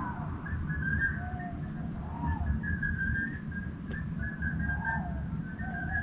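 Night-time countryside animals calling: a continuous chorus of short, whistle-like notes, with a few lower, arched notes here and there, over a steady low rumble.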